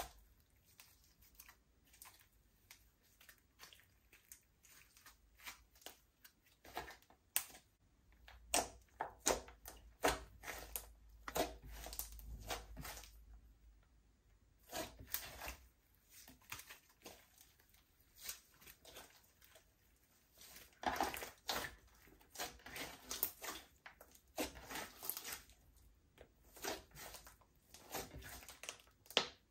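Slime being mixed: irregular sticky clicks, pops and squelches that come in clusters with short pauses between them.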